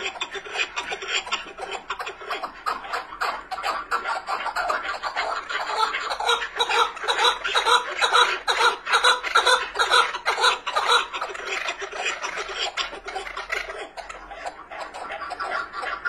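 Chukar partridge (keklik) calling, a rapid, continuous chattering run of calls that swells loudest around the middle.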